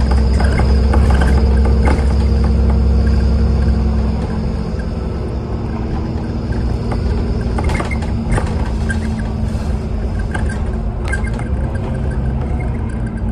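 Bus running, heard from inside the cabin: a steady low engine drone that eases off about four seconds in, with the interior clicking and rattling now and then.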